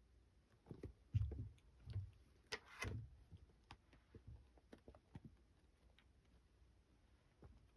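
Kittens at play: scattered light taps and clicks of paws and claws, with a few soft thumps and a short rustle in the first three seconds.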